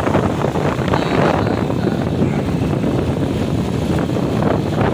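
Motorcycle running at road speed, with wind rushing over the microphone and road noise as it rides along.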